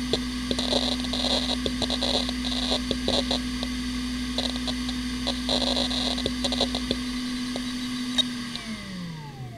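Hitachi Ultrastar 15K300 15,000 rpm SAS hard drive running with a steady whine and clusters of head-seek clicking while the system shuts down. Near the end there is a single click, and the spindle starts to spin down, its tone falling in pitch.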